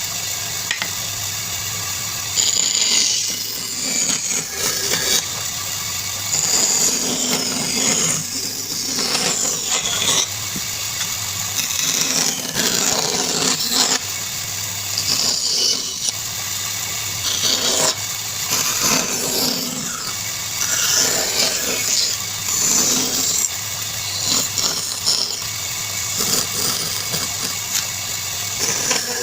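A power tool running steadily with a low motor hum, rising into louder rasping surges every second or two as it cuts into wood.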